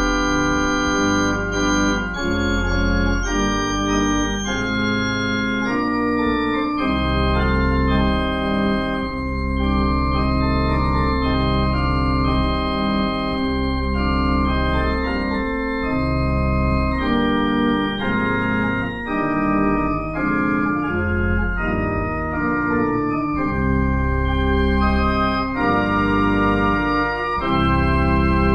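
Organ playing slow, held chords over a deep sustained bass, the chords changing every second or two.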